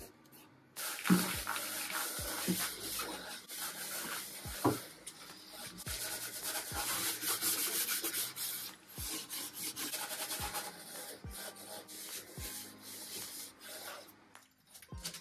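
Rapid back-and-forth scrubbing of a pad on the wooden back panel of a dresser being stripped of its old finish, a dense scratchy rubbing made of many quick strokes. It starts about a second in and fades near the end.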